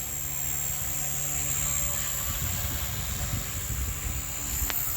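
Blade 150 S electric collective-pitch RC helicopter hovering close by: the steady whir of its rotor blades with a high, constant motor whine.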